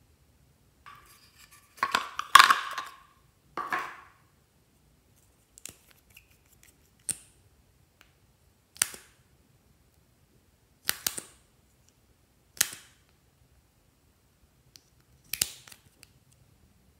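Sharp clicks and taps of small nail polish bottles handled and tipped over a glass dish: a loud cluster about two seconds in, then single clicks a second or two apart.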